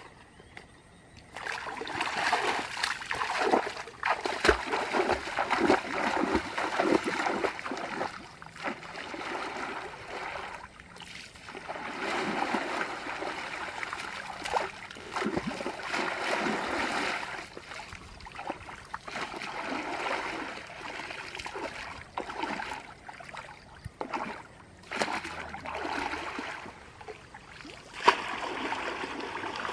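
Muddy shallow water splashing and sloshing as a person wades through it and scoops with a woven bamboo basket, in irregular bursts of a few seconds with short lulls between.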